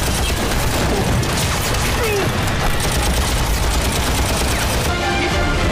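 Heavy machine gun firing continuously, with rapid shots in a dense battle volley. Music comes in near the end.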